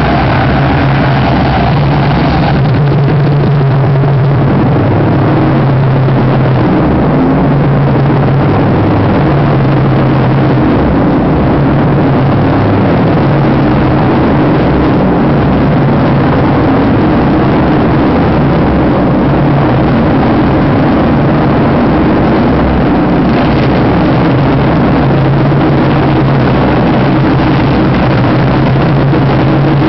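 Live noise-music performance: a loud, dense wall of harsh distorted noise over a low droning hum. The brighter upper layer drops away about two seconds in and returns near the end.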